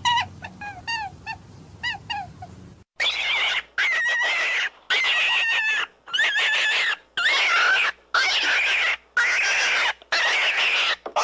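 Rabbit screaming: a run of about eight harsh, shrill screams, each lasting under a second with short gaps between them, beginning abruptly about three seconds in. Before that come quick, high, pitched chirping notes.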